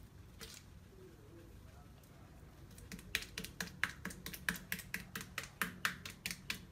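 Sticky slime, softened too much with toothpaste, clicking and smacking as it is pulled off the hands and out of a washbasin. Quick irregular clicks, several a second, start about three seconds in.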